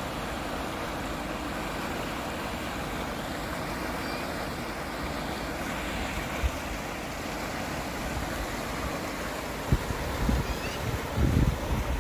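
Swift river water rushing steadily over rocks and fallen trees. Near the end, a few short low rumbles of wind buffeting the microphone.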